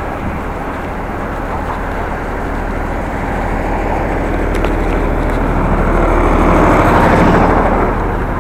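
Wind rumbling on the microphone of a moving bicycle, with road traffic; a motor vehicle passes, swelling to its loudest about seven seconds in.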